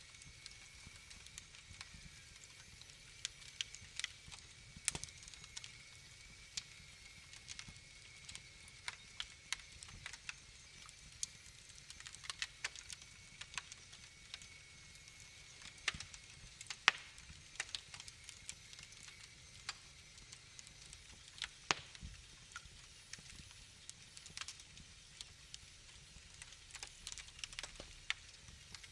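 Wood fire crackling in a fireplace: irregular sharp pops and snaps, a few of them much louder, over a faint steady hiss.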